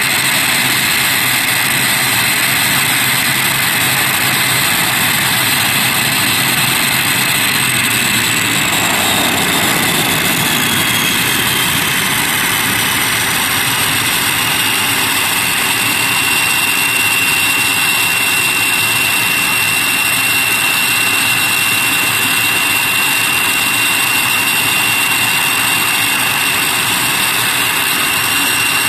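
ATR 72-600's Pratt & Whitney PW127-series turboprop engines running on the ground during an automatic takeoff power control system (ATPCS) test: a loud, steady turbine whine over a propeller drone. About nine seconds in, the whine glides down in pitch and holds at the lower note.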